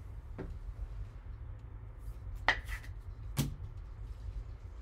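Sharp clicks and taps of plastic card holders and cardboard being handled, about four in all, the loudest about halfway through, over a steady low hum.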